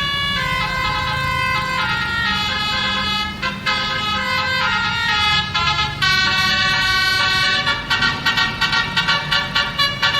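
Very loud Basuri multi-tone bus horn playing a melody, holding several notes together and stepping from one pitch to the next; in the last couple of seconds it sounds in quick short blasts.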